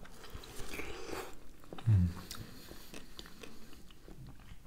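Close-up mouth sounds of people biting into and chewing juicy melon, with scattered small wet clicks. A short low thump about two seconds in is the loudest sound.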